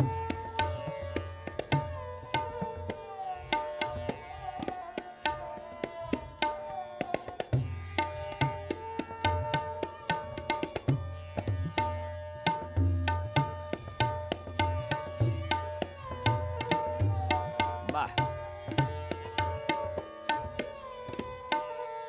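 A tabla solo: rapid, dense strokes on the dayan, with the bayan's deep bass strokes coming and going in clusters. Behind it a sarangi plays the lehra, a short melody repeated over and over to keep the time cycle.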